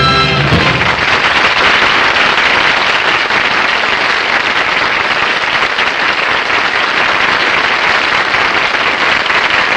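An orchestra's final chord ends in the first half second, followed by a studio audience applauding steadily.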